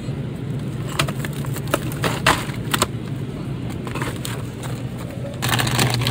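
Supermarket ambience with a steady low hum, likely from the refrigerated cases, and several sharp crinkles and taps as plastic-wrapped meat packages are handled. About five seconds in, the background noise grows louder.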